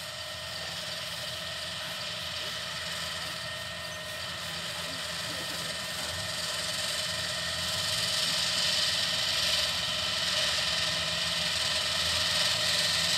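Kubota rice combine harvester running as it harvests, a steady engine and machinery drone with a hiss over it, growing louder as the machine comes closer.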